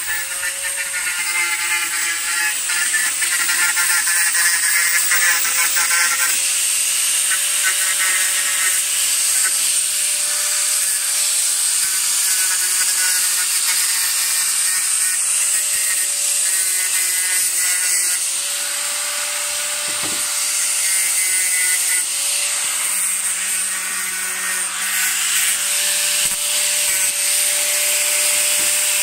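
Electric angle grinder running continuously, its abrasive disc grinding rust off a small steel anvil and vise: a steady motor whine over a loud grinding hiss. It eases off a little about two-thirds of the way through, then picks up again.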